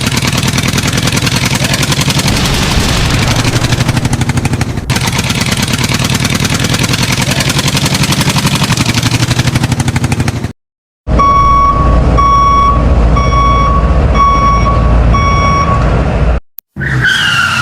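Heavy construction-vehicle engine running, then a reversing alarm beeping steadily in evenly spaced beeps over the engine's low rumble. A short falling cartoon glide follows near the end.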